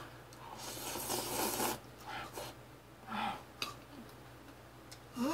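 Jajangmyeon noodles slurped in one long noisy draw, followed by two shorter slurps and small mouth clicks of eating.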